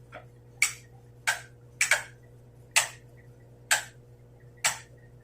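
A run of short sharp ticks, about one a second and not quite evenly spaced, over a faint steady hum.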